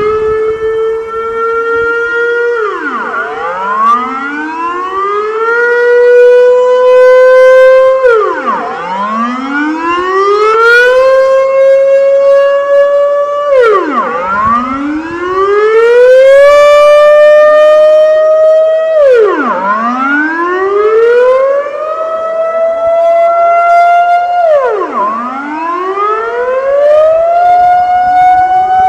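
Dutch national civil-defence sirens wailing on their monthly test. The pitch rises over about three seconds, holds, then drops sharply, about every five and a half seconds. Two or more sirens overlap slightly out of step.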